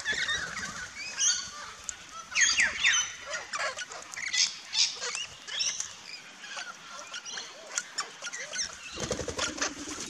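A feeding flock of parrots (rainbow lorikeets, crimson rosellas and king parrots) calling: many short, shrill screeches and chatter overlapping throughout. Wings flap as birds fly in and out, with a louder burst of close wing flutter near the end.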